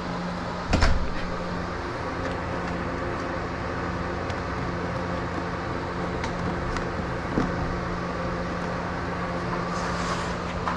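Plastic CD jewel cases clicking and knocking as they are flipped through in a plastic tote, with one loud knock about a second in. A steady low hum runs underneath.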